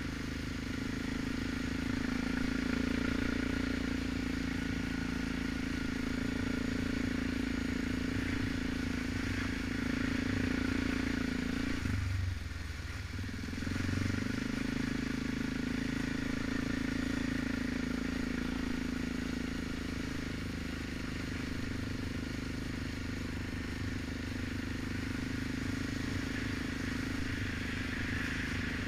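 ATV engine running steadily under way, with wind and rattle from the ride. About twelve seconds in, the engine note drops off for a second or so, then picks up again.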